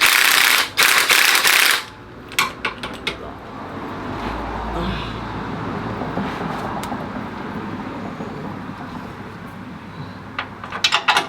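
Engine mount bolts being tightened with a hand ratchet: two loud rattling bursts in the first two seconds, then scattered clicks, and a quick run of ratchet clicks near the end.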